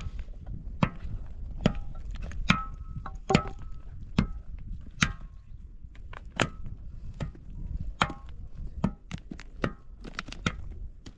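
Steady chopping: a tool strikes wood about once every 0.8 seconds, a dozen sharp blows in all, some with a brief ring.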